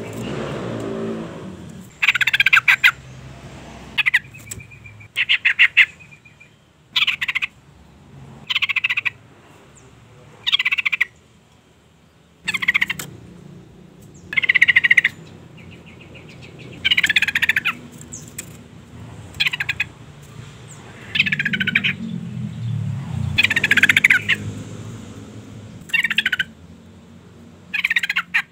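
Female yellow-vented bulbul (trucukan) giving short chattering calls, one every second or two, a female's call to a male. A faint low rumble sits underneath at times.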